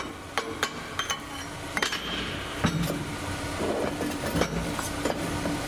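Light metallic taps and clinks of a chipping hammer on the flux-core welds' slag, about three a second, then rough scraping over the steel weld from about three and a half seconds in.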